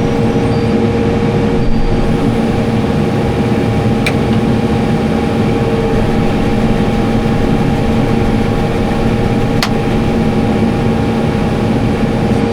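Case IH Farmall 110C tractor's diesel engine running steadily, with two faint clicks about four seconds and nearly ten seconds in.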